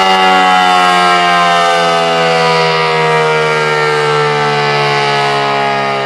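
ACA Cyclone 125 electromechanical outdoor warning siren sounding loudly, its tone sliding slowly and steadily down in pitch.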